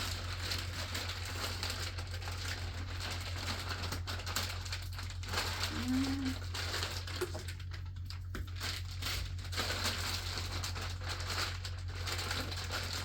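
Plastic packaging rustling and crinkling as parts are rummaged through, with a steady low hum underneath.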